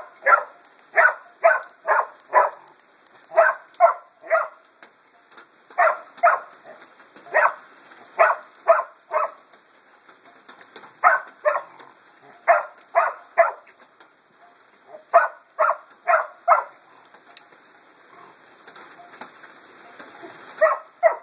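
English springer spaniel barking at raccoons caught in live traps: sharp barks in quick clusters of two to four, with pauses of a second or two between clusters and a longer lull before a last burst near the end.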